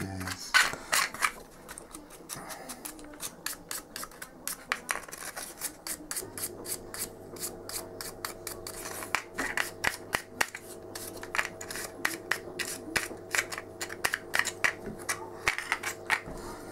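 Flat paintbrush dry-brushing over a ridged plastic yoghurt-pot piece: a quick run of short, scratchy brush strokes rasping across the ribs. A low steady hum comes in about six seconds in.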